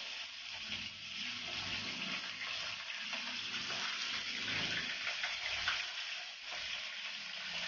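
Whole bisugo (threadfin bream) sizzling and crackling in hot cooking oil in a frying pan, a steady hiss with fine spattering crackles as the fish go in.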